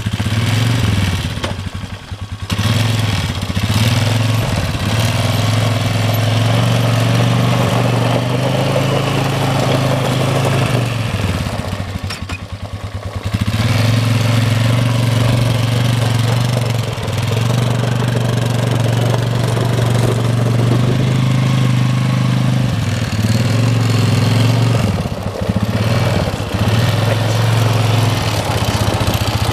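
2006 Polaris Sportsman 450 ATV's single-cylinder four-stroke engine running while the quad is ridden, its pitch rising and falling with the throttle. It drops back briefly about two seconds in and again about twelve seconds in.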